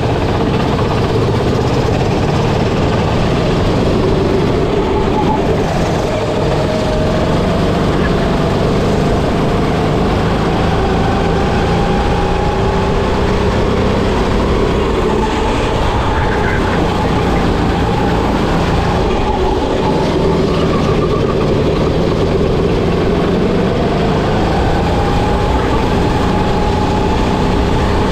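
Racing kart engine heard from the driver's seat, running hard at speed, its note slowly rising and falling as the kart brakes and accelerates through corners.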